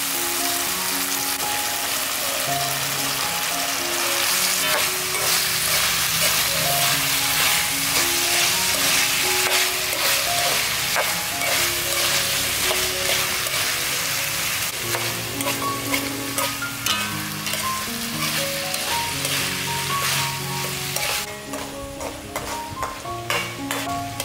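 Stir-fry of snails, chilies and bell pepper sizzling in a hot wok, stirred with a metal spatula that scrapes and taps the pan. The sizzle eases about three quarters of the way through, leaving the scrapes and taps clearer. A gentle melody plays underneath.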